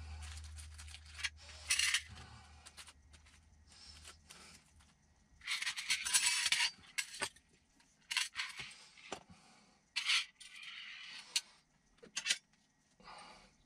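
Small metal screws and parts clattering and clinking as they are tipped from a plastic bag into a metal parts tray, with the crinkle of the plastic bag. It comes in short bursts, the longest about six seconds in.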